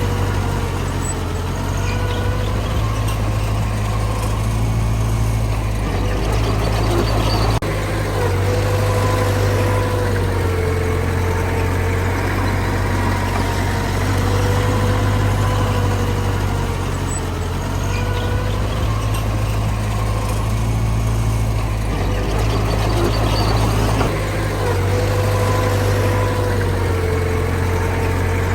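Heavy diesel earthmoving machinery running steadily with a deep rumble, and a whine above it that rises and falls in pitch as the machine works.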